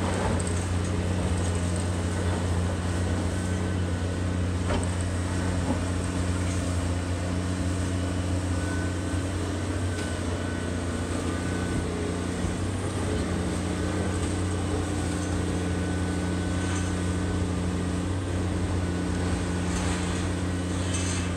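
A large engine running steadily with an even low hum, with a few faint knocks over it.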